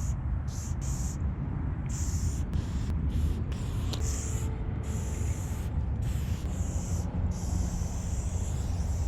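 Aerosol spray paint can hissing in a run of short and longer bursts with brief pauses between, over a steady low rumble.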